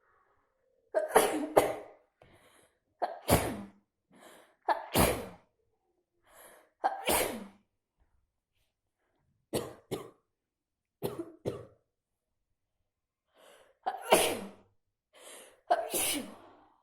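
A person with a cold sneezing over and over: about ten sharp sneezes, several coming in quick pairs, with short gaps and faint breaths between them.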